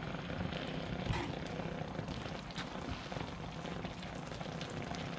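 Rice and mince simmering and bubbling in a frying pan on a gas burner as the liquid reduces down, with a steady even sizzle and faint crackles, stirred through with a spatula.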